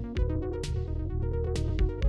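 Background electronic music with a steady beat, a sustained bass line and held synthesizer chords.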